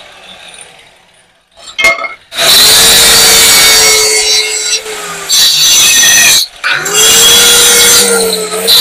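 Handheld electric marble cutter with a diamond blade cutting through a stone-look wall tile: a loud, steady grinding with a motor whine. About two seconds in, after a click, the motor spins up and cuts. It stops briefly about two-thirds through, then spins up again and goes on cutting.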